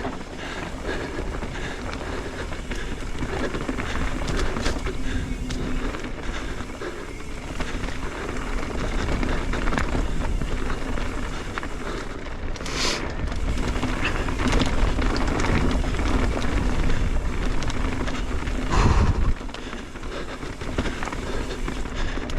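Mountain bike riding down rocky singletrack: a steady rush of tyres rolling over dirt and rock, with rattles and knocks from the bike and a heavy jolt about three-quarters of the way through.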